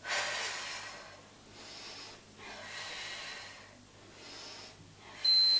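Heavy exertion breathing, about four hard breaths, during tricep dips; near the end a Gymboss interval timer sounds a loud electronic beep, marking the end of the work interval.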